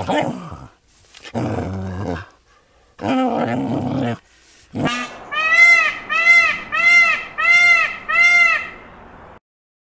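A Jack Russell terrier gives three rough calls about a second apart. About five seconds in, a peacock follows with a quick series of about six loud, rising-and-falling calls.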